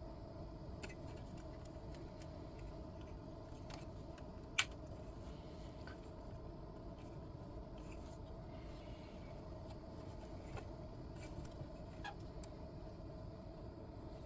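Faint scattered clicks and taps of small parts being handled, with one sharper click about four and a half seconds in, as fuse-style lamps are fitted into their clips. A steady low hum runs underneath.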